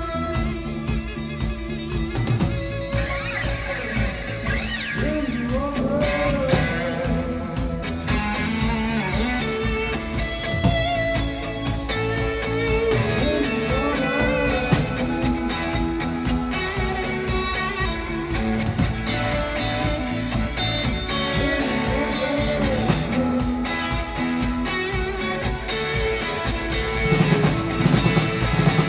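A live rock band playing electric guitar, bass guitar and drum kit together, with held and bending guitar notes over a steady beat.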